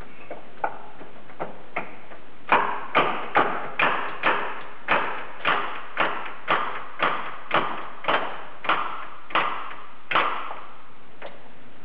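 Shop press forcing a steel shaft into a Bridgeport mill back gear. A few faint ticks lead into a regular run of sharp knocks, about two a second for some eight seconds, and the knocks stop as the shaft seats.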